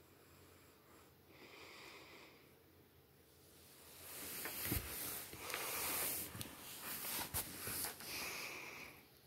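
Soft breathing close to the microphone. From about four seconds in there are a few seconds of louder rustling with a couple of sharp knocks, then another breath near the end.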